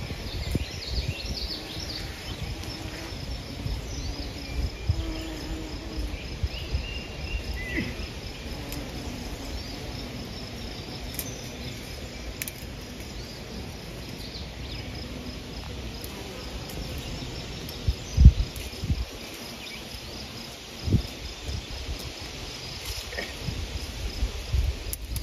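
Insects: a steady, high, rapidly pulsing trill, with the low buzz of bumblebees working lilac blossoms in places. Wind rumbles on the microphone, with a sharp bump about three-quarters of the way through.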